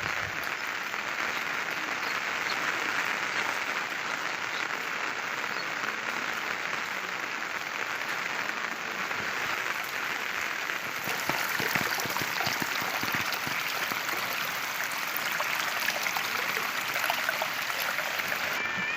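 Heavy rain falling steadily. From about halfway through it gets a little louder, with more distinct close drops.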